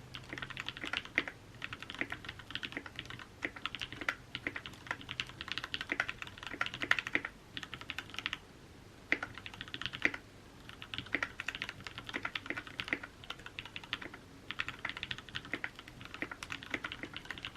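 Typing on a freshly hand-soldered Tofu65 mechanical keyboard: quick runs of key clicks with a couple of short pauses about halfway through.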